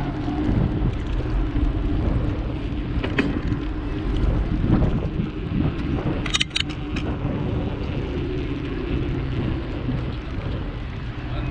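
Steady low rumble of wind on the microphone and a bicycle rolling along a path while riding. A short cluster of sharp clicks comes about six seconds in.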